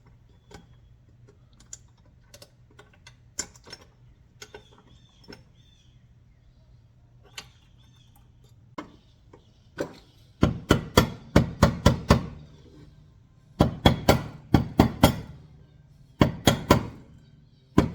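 Metal tools working on a fifth-wheel hitch's lock and latch parts: light scattered clicks, then from about ten seconds in three bursts of rapid, loud metallic clicks, about five a second, as the locking nut is tightened.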